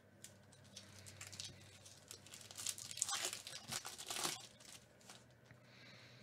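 Foil wrapper of a Topps Holiday baseball card pack crinkling and tearing open by hand, a run of sharp crackles that is loudest about three to four and a half seconds in.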